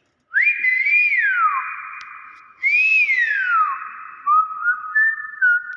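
Nias hill myna giving loud, clear whistles: two long notes that rise and then slide down, followed by shorter, steadier whistles that step upward near the end.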